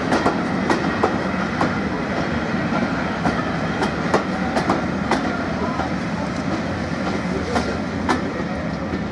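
Heritage passenger coaches rolling past on the rails: a steady rumble of wheels, with irregular sharp clicks and clanks as the bogies cross rail joints.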